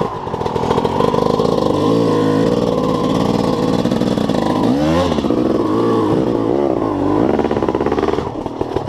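Off-road enduro motorcycle engine revved hard in repeated bursts, its pitch rising and falling several times, as the bike struggles up a rocky step; the engine cuts out shortly before the end.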